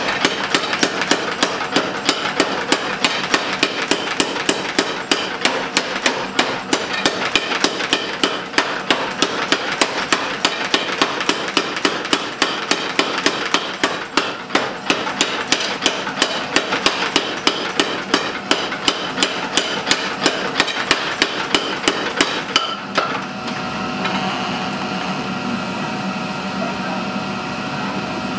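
Power hammer forging a red-hot iron bar, striking in a fast, even rhythm of about three or four blows a second. Near the end the blows stop, leaving a steady machine hum.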